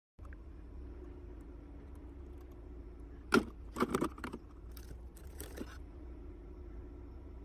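Clear plastic blister-tray packaging clicking and crackling as a small metal-framed figure accessory, a miniature school chair, is pulled out of it. One sharp click about three seconds in, a quick cluster of clicks and rustles right after, then a few fainter ones, over a low steady hum.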